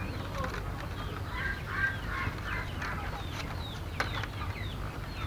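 Chickens clucking in the background while small birds chirp in short falling calls. A sharp click comes about four seconds in.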